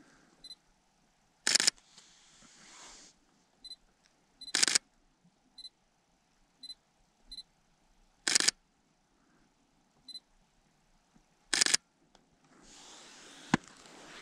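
Digital camera taking photos: four sharp shutter clicks, about three to four seconds apart, with faint short high beeps in between.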